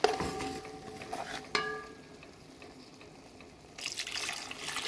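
Two light clinks against the pot, each ringing briefly, then water poured from a glass into the pot of vegetables, splashing and hissing for about a second and a half near the end.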